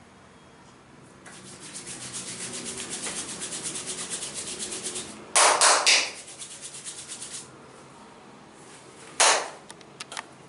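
Hands rubbing fast and rhythmically over oiled skin in a back massage, about six strokes a second. Two sudden, much louder bursts come about five and a half and nine seconds in.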